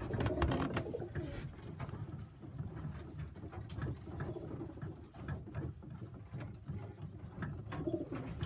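Pigeons cooing, a low repeated murmur from several birds, with scattered light clicks and scuffles.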